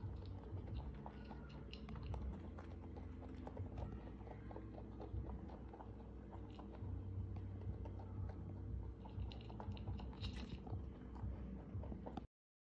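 Two rabbits crunching and chewing dry hay and pressed grass sticks from a bowl, heard close up as a rapid, uneven run of small crisp bites. It cuts off suddenly near the end.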